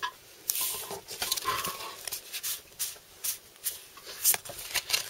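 A stack of Pokémon trading cards being handled in the hand, slid and flicked against each other. The cards make short papery swishes and clicks at an uneven pace.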